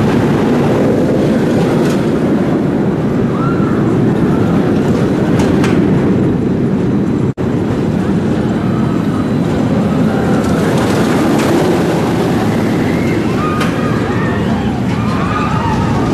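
Steady loud rumble of a steel roller coaster running on its track, with faint distant voices above it and a brief dropout in the sound about seven seconds in.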